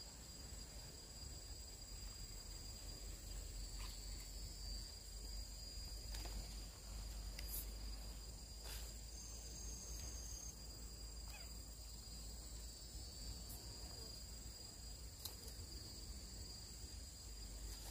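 Steady high-pitched drone of insects in two held tones, with a few faint clicks.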